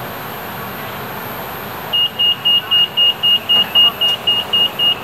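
Rapid high-pitched door-closing warning beeps from a monorail train's doors and platform screen doors, about four a second, starting about two seconds in over the steady hum of the train standing at the station: the signal that the doors are about to close.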